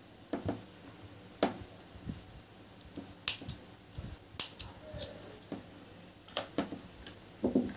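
Irregular light clicks and taps of imitation pearl beads being handled on a beaded bag, with a few sharp snips of small scissors trimming the thread ends around the middle.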